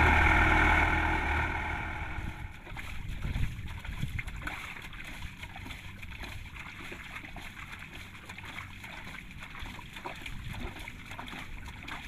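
Kubota DC-105X combine harvester running, its engine loud and steady for the first two seconds, then dropping away sharply. After that a quieter, irregular noise of water and small crackles continues with the machine running low underneath.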